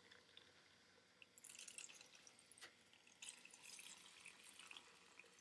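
Faint pouring and fizzing of canned soda into a cup of ice and a metal tumbler. The carbonation crackles in two spells.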